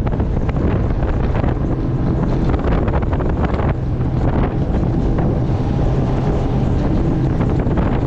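Strong wind buffeting the GoPro microphone, over a steady low drone of a boat running on open water.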